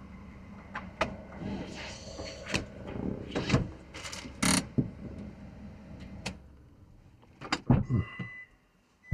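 A car engine idling, heard from inside the cabin, with clicks, knocks and rustling of things being handled. The engine hum stops about seven seconds in, and a few louder knocks follow.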